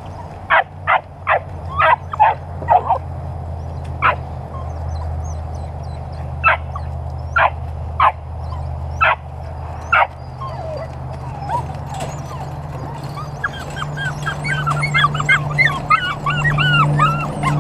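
A litter of 12-week-old Dutch Shepherd puppies yipping, about a dozen short sharp yips over the first ten seconds, then whining excitedly in a quick run of many rising-and-falling whimpers as they jump at a wire kennel panel. A low steady hum runs underneath.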